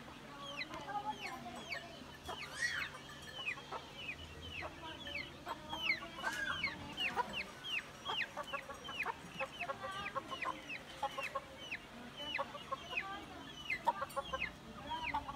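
Aseel chickens clucking, over a steady run of short, high chirps that slide downward, several a second.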